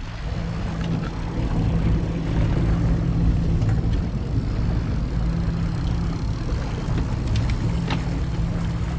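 Fishing boat's engine running steadily at trolling speed, a continuous low drone with the rush of wind and water over it, and a few faint clicks.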